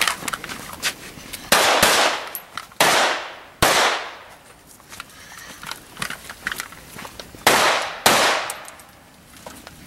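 Five handgun shots fired on a timed practical-shooting stage: three over the first few seconds, then a pause and two more in quick succession, each trailing off in echo.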